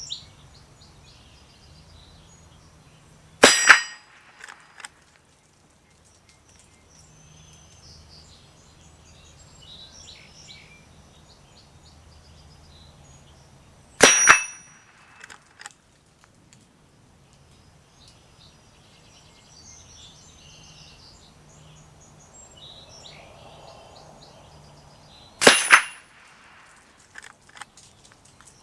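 Three .22 LR rifle shots from a Henry lever-action, about ten seconds apart, each followed about a second later by a few small clicks of the lever being worked to chamber the next round.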